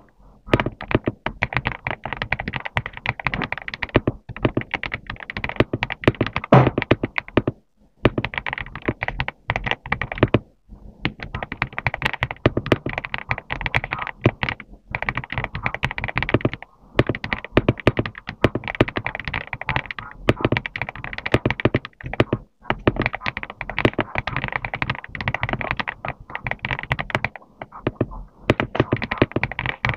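Typing on a GMK67 mechanical keyboard with Akko V3 Cream Yellow linear switches: fast runs of keystrokes, each key a short thock and clack, broken by brief pauses.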